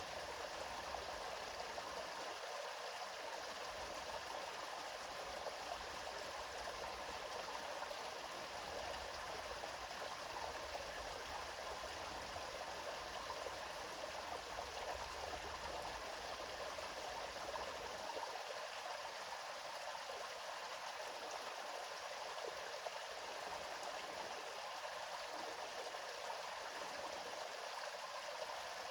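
Steady sound of a river or stream flowing and babbling, an even, continuous rush of water.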